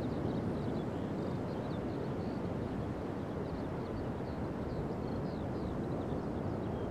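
Pacific surf breaking along a sandy beach: a steady, deep rush of waves with no single break standing out.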